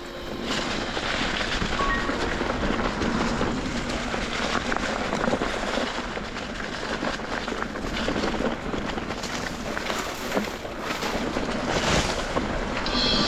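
Wind buffeting the microphone with a dense clatter of small knocks and rattles, as from a mountain bike on a fast descent over rough trail.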